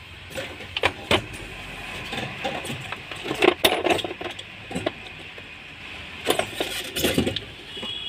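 Toyota Corolla Altis plastic fuel pump assembly being worked loose and lifted out of its opening in the fuel tank: irregular clicks, clinks and knocks of hard plastic and metal, with a louder cluster around the middle.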